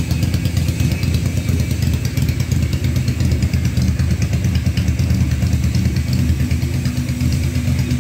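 Yamaha Virago 535's air-cooled V-twin engine idling steadily.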